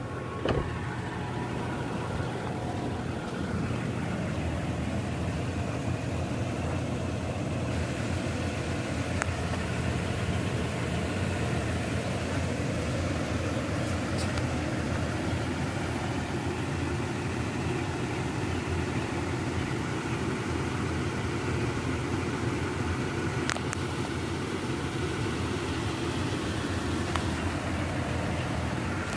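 A 2023 Toyota Tacoma's 3.5 L V6 idling steadily, with a short sharp knock about half a second in.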